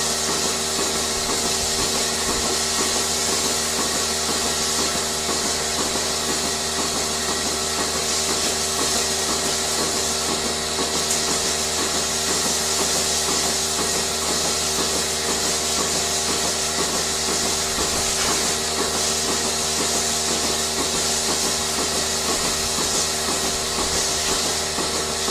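Machinery running steadily: a continuous hum made of several fixed tones over a strong hiss, with a faint, fast, even pulsing underneath.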